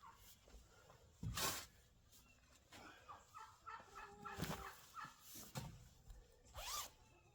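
A shovel scraping and digging into packed chicken-pen bedding several times, the loudest stroke about a second and a half in. Chickens cluck in between.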